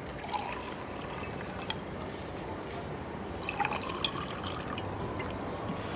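Water poured from a jug into two drinking glasses, one after the other: the first pour early on, the second starting a little past halfway.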